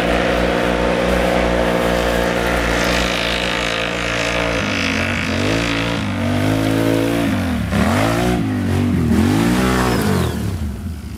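Can-Am Outlander ATV engine held at steady high revs, then from about halfway through revving up and falling back several times as the throttle is worked.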